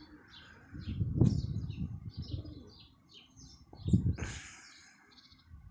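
Strong wind buffeting the microphone in gusts, loudest twice, about a second in and about four seconds in, with small birds chirping in quick short calls underneath.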